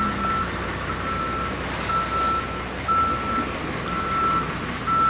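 Vehicle backup alarm beeping: a single steady high tone about once a second, each beep about half a second long, over steady street background noise.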